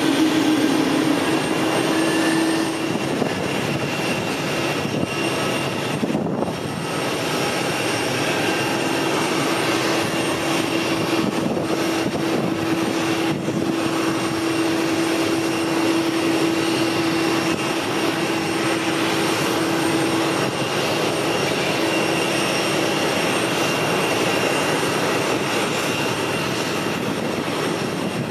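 Jet airliner engines running steadily at the airport: a constant rush of engine noise with a few faint steady whining tones.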